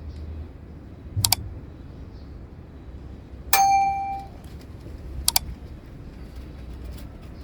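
Metal striking metal: a couple of sharp clinks, then a single loud ringing clang that dies away in under a second, then two more sharp clinks.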